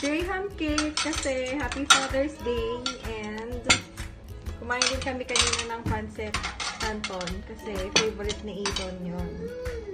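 Cutlery and dishes clinking on a table, many sharp clicks throughout, with a melody running underneath.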